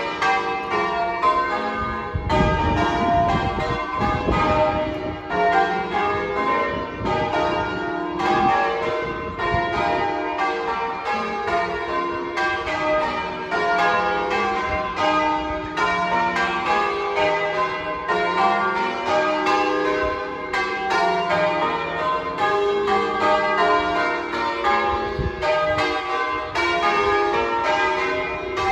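Church bells change ringing: a continuous, even run of bell strikes, each bell sounding in turn in a shifting order.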